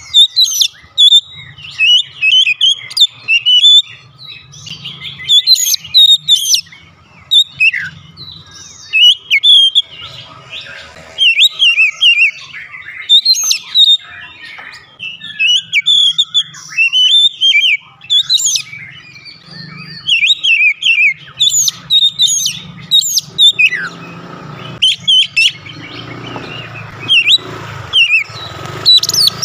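Oriental magpie-robin (kacer) singing a long, varied song of short whistled and chattering phrases, one after another with brief pauses, in full song.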